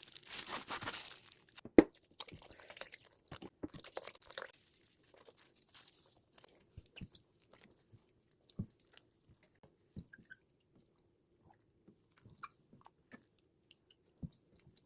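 Crisp crunching and chewing of bomdong water kimchi, with a rustle over the first couple of seconds and scattered crunches that grow sparser toward the end.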